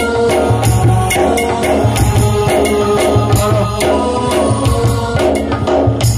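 Live gajan folk music: drums and jingling percussion keeping a steady beat under held melody notes.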